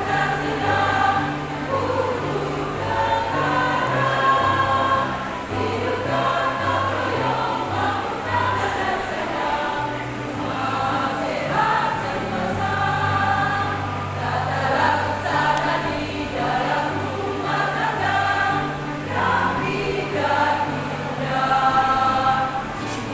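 Amateur women's community choir singing a song, with an accompaniment whose low bass notes step from one held note to the next.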